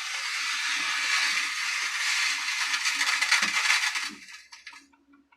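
Amplifier speaker hissing with loud static, which cuts off suddenly about four seconds in. The hiss is the amplifier's fault, which the technician traces to its preamp.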